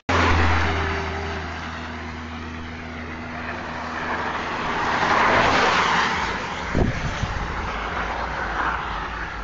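Road traffic passing close by: a vehicle's engine hums steadily at first, then the noise of another passing vehicle swells and fades, loudest about five and a half seconds in. A brief thump comes near seven seconds.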